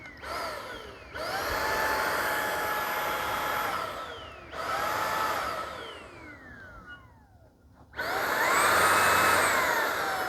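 Eufy HomeVac S11 Infinity cordless vacuum motor switched on four times in short runs. Each time it spins up with a rising whine, runs steadily, then winds down with a falling whine when switched off.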